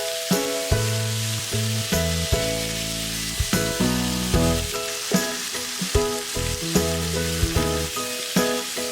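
Chicken jalfrezi sizzling as it fries in a pan, a steady hiss, under melodic background music.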